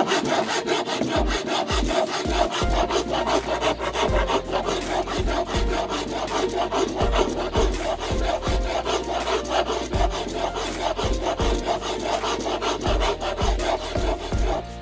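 A steel hand file rasping along the edge of a clamped wooden piece in rapid back-and-forth strokes: a steady, coarse scraping of metal teeth cutting wood.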